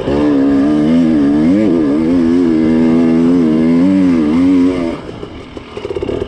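KTM 300 TPI two-stroke dirt bike engine pulling under throttle, its pitch wavering up and down as the throttle is worked. It drops off throttle about five seconds in.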